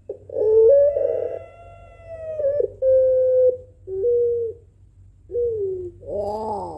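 Puter pelung, a long-voiced Barbary dove, cooing: one long drawn-out coo held on a steady note for about three seconds, then two short coos, and a new coo beginning near the end.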